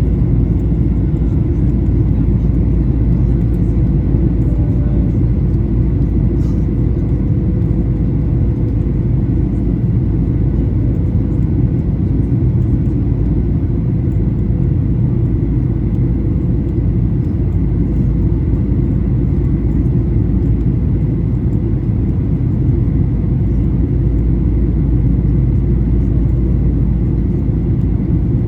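Steady cabin noise inside a Boeing 737-800 in flight: a low, even rumble of airflow and the CFM56-7B engines, with a faint steady whine.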